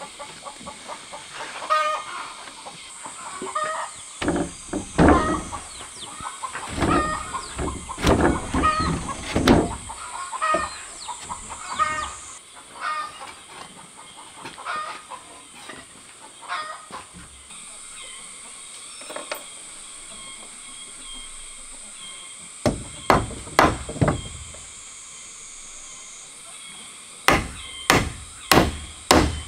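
Chickens clucking repeatedly for the first dozen seconds, mixed with a few dull knocks of wood. Near the end, a quick run of hammer blows on wood, about two a second.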